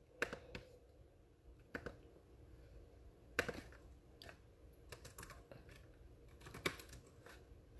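Laptop keyboard being typed on: faint, irregular key clicks in scattered taps and short runs, with a few sharper clicks standing out.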